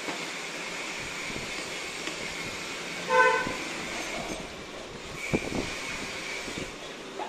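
A vehicle horn toots once, briefly and loudly, about three seconds in, over a steady background hiss. A few light knocks follow a couple of seconds later.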